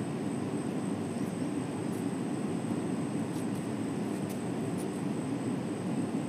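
River water rushing steadily, with a few faint clicks.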